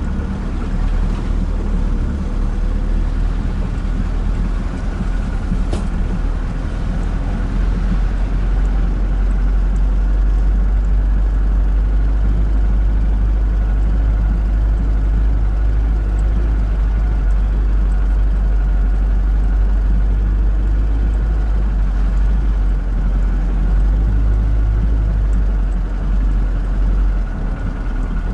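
UAZ-452 'Bukhanka' van's engine running steadily as it drives along a muddy dirt road.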